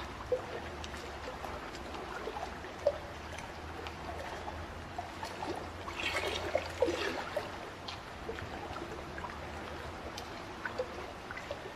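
Water trickling and burbling steadily, with many small splashes and bubbling plinks, and a busier patch of bubbling about six seconds in.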